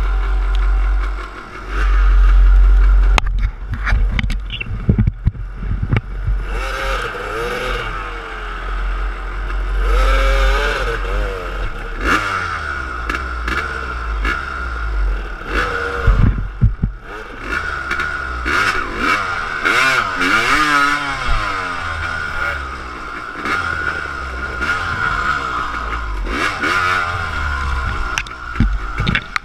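Dirt bike engines revving up and down unevenly, with twigs and brush scraping and clattering against the bikes.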